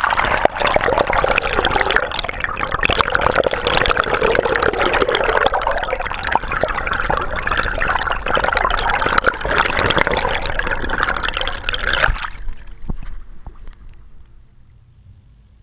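Water rushing, bubbling and churning around a GoPro camera housing dragged through the river on a fishing line with a hooked sturgeon. The noise stops abruptly about twelve seconds in, leaving only a faint hiss.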